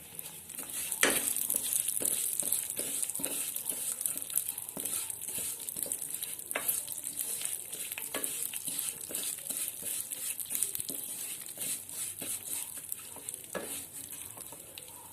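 Sesame, carom and fennel seeds sizzling in hot ghee in a kadhai while being stirred, with frequent scrapes and small taps. The sizzle picks up about a second in.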